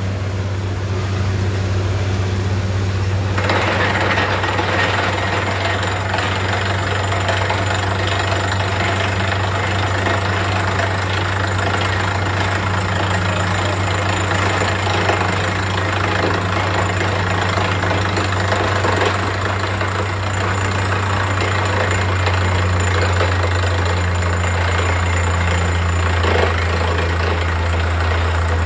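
Truck-mounted borewell drilling rig running at work: a deep, steady engine hum under a loud rushing noise from the drilling and the muddy water and cuttings gushing out of the borehole. The rushing grows louder about three seconds in, and the engine note shifts slightly lower about two-thirds of the way through.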